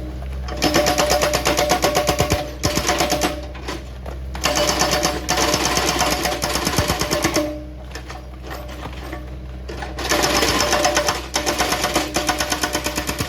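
Excavator-mounted hydraulic rock breaker pounding rock in rapid blows, several a second, in three bursts of about three seconds each. The machine's engine hums steadily underneath.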